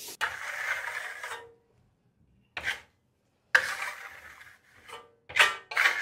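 Metal plastering trowel scraped across a textured wall, wiping off excess metallic paste. It makes one long stroke, a short one, another long one, then a quick run of short strokes near the end.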